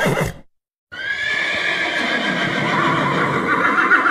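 A long, high, horse-like whinny starting about a second in: it holds one pitch, then wavers and drops with a shaky trembling pitch near the end.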